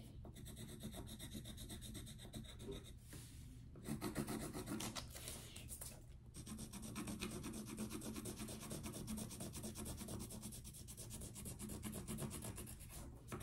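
Orange coloured pencil rubbing back and forth on paper in quick strokes, colouring in a shape, with two brief pauses about four and six seconds in.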